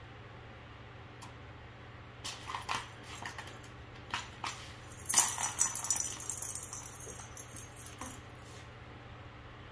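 Pink plastic circular track cat toy rattling and clattering as a ragdoll kitten bats at it: scattered clicks at first, then a dense burst of rattling about halfway through that fades out a couple of seconds later.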